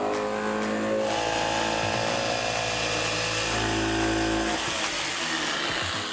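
Jigsaw running and cutting through the thick plastic bottom of a plastic trash can. The cut is steady throughout and tails off near the end.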